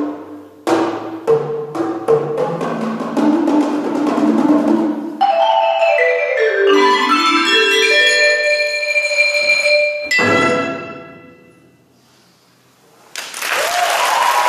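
Closing bars of a percussion concerto with Chinese orchestra: marimba and other mallet percussion play sharp strikes and then a falling and rising run of notes over the ensemble. A final full-ensemble strike about ten seconds in rings away into a brief hush, and applause breaks out near the end.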